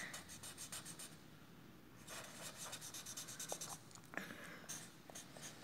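Felt-tip marker scribbling on paper in quick, short strokes, shading in, in two spells with a pause of about a second between them.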